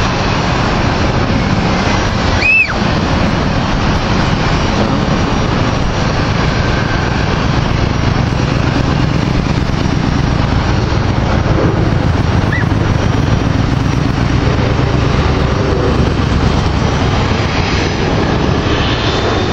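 Jet engines of a four-engine Douglas DC-8 freighter running on the runway: a steady, low-heavy rumble. A short sharp squeak cuts in about two and a half seconds in.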